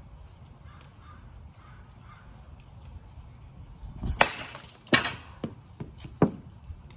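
A baseball bat is swung at a ball on a batting tee, and about four seconds in there is a sharp crack of bat on ball. Several more sharp knocks and clatter follow over the next two seconds.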